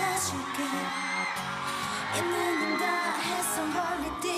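K-pop song: a woman singing in Korean over a pop backing track.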